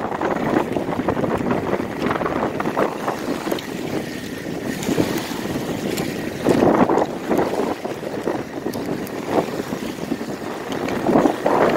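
Small waves washing onto a shallow sandy shore, with wind buffeting the microphone; the washing swells louder about two-thirds of the way through and again near the end.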